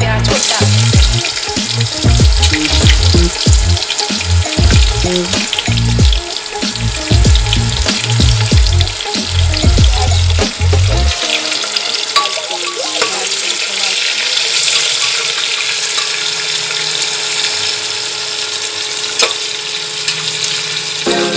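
Sliced onions sizzling steadily as they fry in hot oil with whole spices in an aluminium pressure cooker. Background music with a beat plays under the first half and stops about halfway through.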